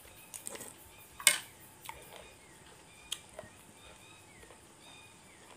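Eating sounds of a person sipping soup from a spoon and picking at food: a few scattered short clicks and knocks, the loudest about a second in. Faint short high chirps repeat in the background from about two seconds in.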